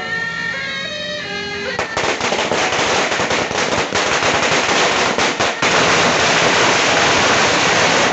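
A long string of red paper firecrackers going off. Rapid cracking starts about two seconds in and becomes one continuous crackle from about halfway on. Music with held melodic notes plays before the cracking begins.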